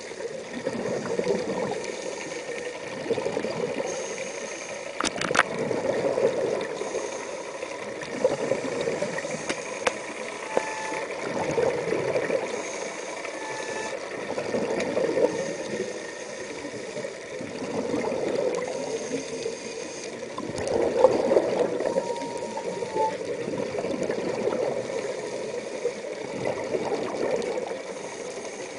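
Scuba diver's breathing heard underwater through a camera's waterproof housing: bubbling exhalations from the regulator that swell and fade every few seconds. A sharp click comes about five seconds in.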